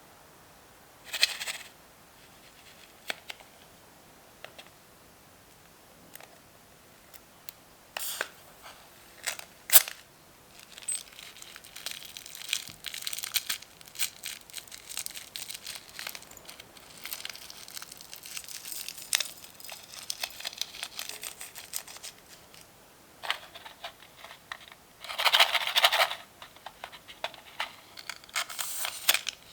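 Close-up handling of mini balloons and slime: a few sharp snaps and clicks at first, then a long stretch of dense crinkling and crackling, and two louder rustling bursts near the end.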